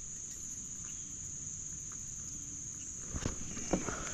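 A steady, high insect chorus, such as crickets, runs throughout. From about three seconds in there are a few light knocks.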